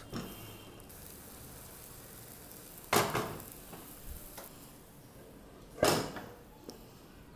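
Egg omelette sizzling softly on a low flame in a non-stick pan, with two sharp metal clanks about three seconds apart, the second as a heavy pan used as a lid is set back over it.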